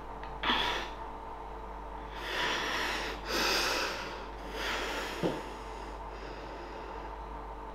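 A woman breathing heavily: four audible breaths in and out, a short one and then three longer ones.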